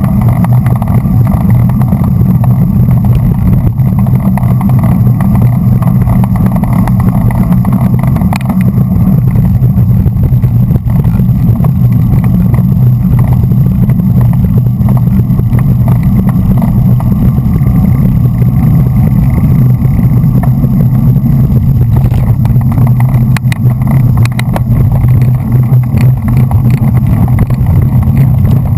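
Loud, steady wind rumble on a bike-mounted GoPro camera moving at racing speed.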